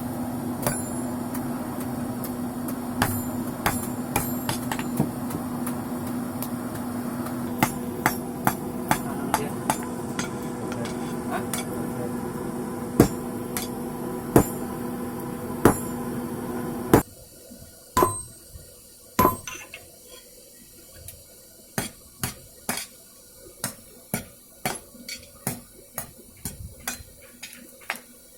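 Hand hammer striking rebar being forged on an anvil, the blows coming irregularly over a steady hum. The hum cuts off suddenly about two-thirds of the way through, and from then on the hammer blows fall evenly, a little under two a second.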